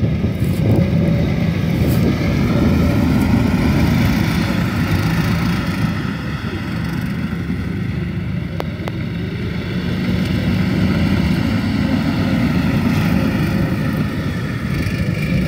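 Engine of a vintage 1970s Action Age Scrambler 6x6 amphibious ATV running steadily as it drives over rough ground. It fades somewhat midway and grows louder again near the end.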